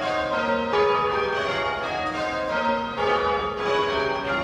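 Church tower bells rung full circle by a band of ringers on ropes, ringing rounds: each bell strikes in turn at a steady pace, its tone ringing on over the next.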